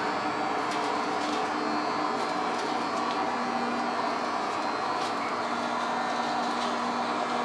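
Engine-room machinery of a river vessel running steadily: a constant diesel din with several steady hum tones and a few faint clicks.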